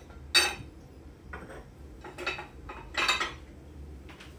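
Dishes and utensils knocking and clinking as they are handled: four separate sharp clinks, the first, about half a second in, the loudest and ringing briefly.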